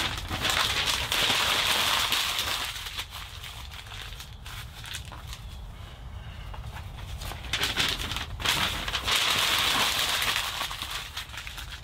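Windproof matches struck and flaring with a hiss, twice, each strike starting with a sharp scratch and fizzing for about three seconds.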